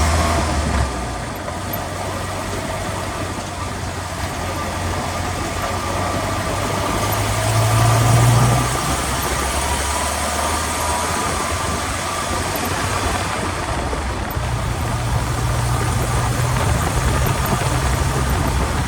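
Drivetrain and engine noise heard from beneath a running vehicle at the transmission skid plate: a steady low drone that swells about eight seconds in. The rear-differential mystery noise the owner is chasing does not stand out from this spot.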